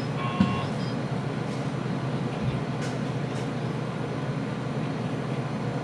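Steady low background rumble with no speech, and a few faint short tones about half a second in.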